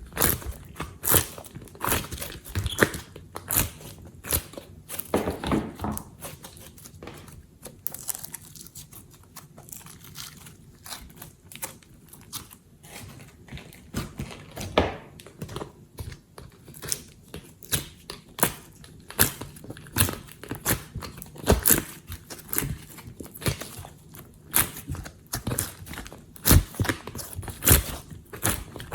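Glossy slime being kneaded and squished by hand, giving irregular wet clicks and crackling pops as air pockets burst, quieter for a few seconds in the middle.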